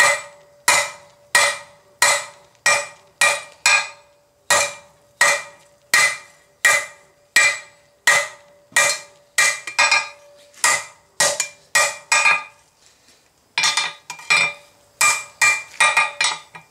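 Hand hammer striking a red-hot flat steel bar on an anvil in steady blows, about three every two seconds, each a sharp metallic clang with the anvil ringing on between blows. This is drawing out the bar by hammering it thinner and longer. The blows pause briefly about twelve seconds in, then resume.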